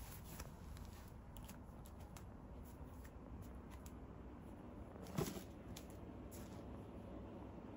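Faint rustling and scattered light clicks and scratches, with one brief louder sound about five seconds in.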